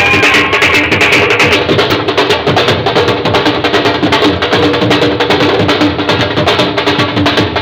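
Dhol drums played at a fast, driving beat, with a steady held note from the accompanying band underneath.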